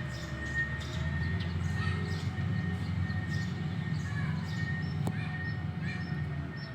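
Heavy road-building machinery's diesel engine running steadily as a low rumble, with birds chirping over it and a steady high thin tone.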